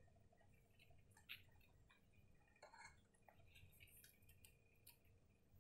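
Near silence: room tone with a few faint, scattered small clicks, the clearest about a second in.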